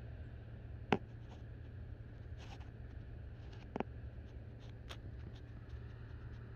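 Handling noise from a camera held against a night-vision monocular's eyepiece: light rubbing and small ticks, with two sharper clicks about one second in and just before four seconds, over a steady low rumble.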